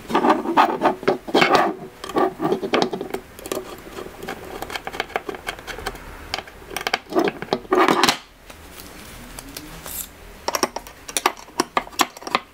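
Hex key turning a button-head screw into a metal radiator mount, with irregular metallic clicks and scrapes as the tool and parts are handled, in clusters at the start, around the middle and near the end.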